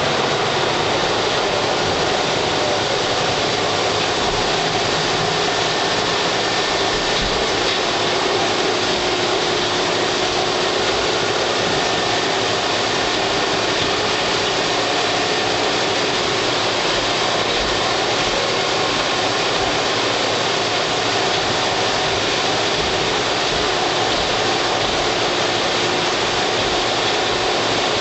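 Large wood lathe running as it cuts wood, giving a steady, unbroken machine noise.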